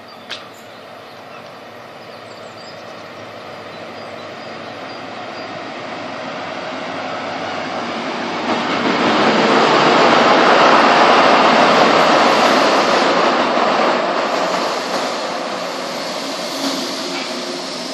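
InterCity 125 (HST) diesel train with power car 43129 arriving at a station: engine and wheels on the rails grow steadily louder as it draws in, loudest about halfway through, then ease off as it slows alongside the platform.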